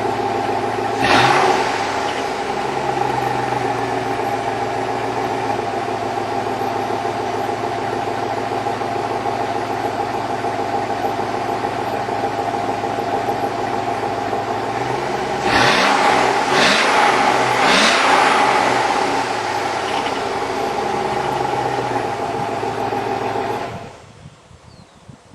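Chevrolet 5.3 L Vortec V8 idling, with the piston slap the owner says is evident on a cold start. The throttle is blipped briefly about a second in and three times in quick succession later on, and the engine shuts off near the end.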